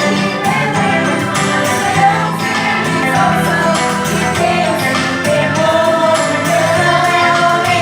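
A song from a church Christmas cantata: voices singing over instrumental accompaniment with a steady bass line and a regular percussion beat.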